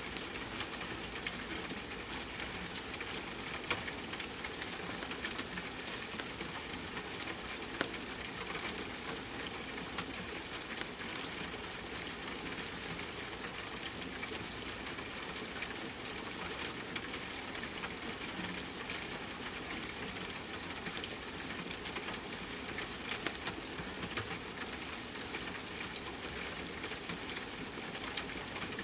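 Steady rain hiss with a wood fire crackling: scattered sharp pops and ticks over an even wash of sound.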